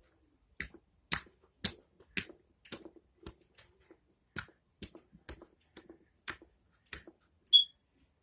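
Slime being squeezed and pressed, making a run of sharp wet clicks, roughly two a second at uneven spacing, from air pockets popping. A short high squeak near the end is the loudest sound.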